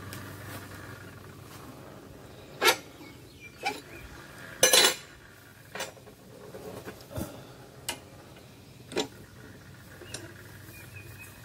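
Blacksmith's hammer striking iron on an anvil while forging a fireplace poker: about seven sharp metallic clanks at irregular intervals, the loudest a quick double strike near the middle.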